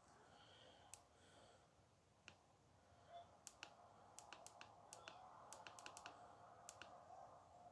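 Quiet room with a run of light, sharp clicks in quick irregular succession from about three and a half to seven seconds in, after a couple of single clicks earlier.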